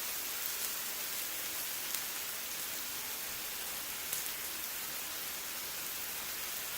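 Thin-sliced lamb sizzling steadily on a grill, with a few faint pops.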